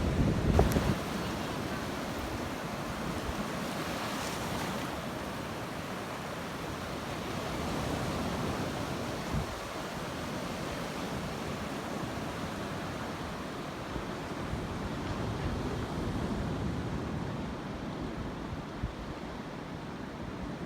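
Ocean surf on a beach: a steady hiss of waves washing in and breaking. For about the first second, wind on the microphone adds a louder low rumble.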